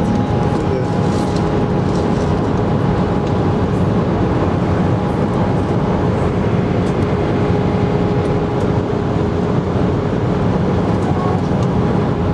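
Steady in-flight cabin noise of an Airbus A319 airliner: jet engine and airflow noise, even and unbroken, with faint steady hums running through it.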